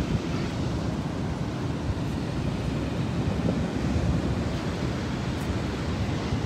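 Steady rushing noise of Niagara Falls' falling water, with wind buffeting the microphone.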